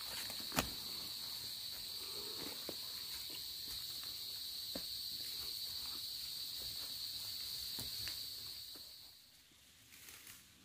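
A steady, high-pitched insect drone in the forest, with scattered footsteps and taps of trekking poles on the trail; a sharp knock about half a second in is the loudest sound. The insect drone fades out about nine seconds in.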